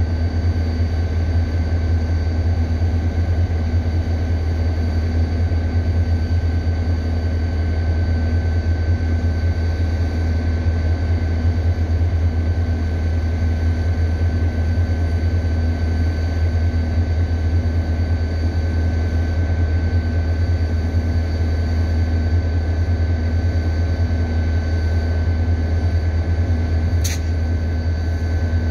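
Diesel Mugunghwa-ho train idling at the platform: a steady low engine drone with a faint steady whine above it. A brief sharp click near the end.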